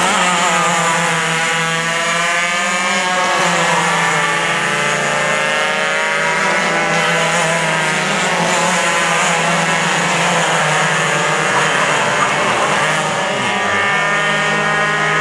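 Several racing go-kart engines running hard through a corner, their overlapping pitches falling and rising as the karts brake and accelerate.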